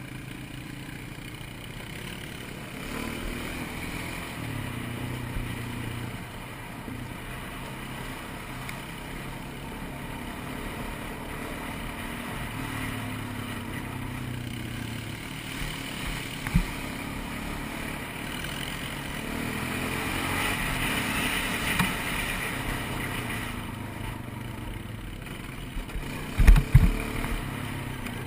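ATV engine running steadily while riding a trail, with a single sharp thump a little past halfway and a cluster of loud thumps near the end.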